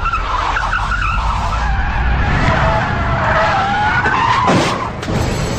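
Car tyres screeching in a long, wavering squeal over a low rumble; the squeal drops sharply in pitch near the end.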